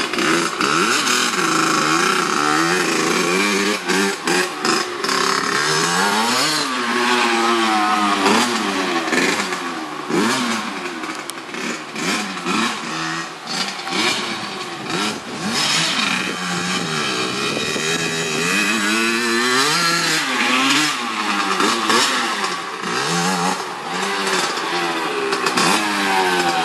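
Kawasaki 80cc two-stroke dirt bike engine being ridden hard, its pitch climbing and falling back again and again as the throttle is opened and closed.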